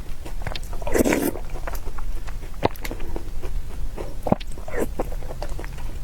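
Close-miked eating: a person chewing and biting food with wet mouth clicks, and a louder noisy bite or slurp about a second in.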